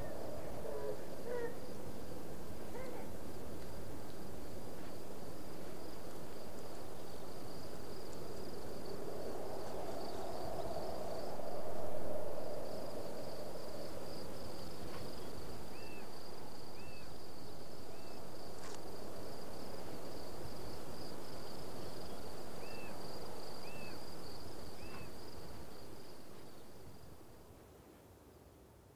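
Insects trilling steadily and high over a noisy background, with a lower hoot-like tone swelling in the middle and a few short high chirps in twos and threes later on; it all fades out over the last few seconds.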